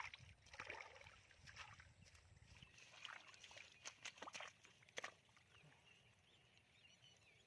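Faint, irregular wet squelches and small splashes of hands working in shallow mud and water.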